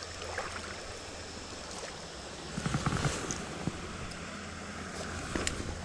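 Small stream running steadily. A few soft knocks and clicks come about three seconds in, and a sharper click comes near the end.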